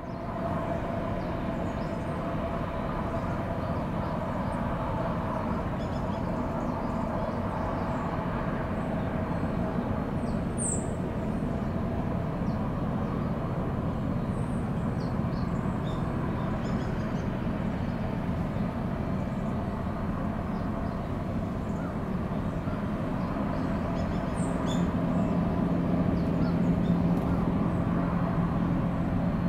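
Distant steady drone of a Hayabusa-class missile boat's gas turbines under way at speed, a hum with a few steady tones that grows a little louder and deeper near the end. A few short bird chirps over it.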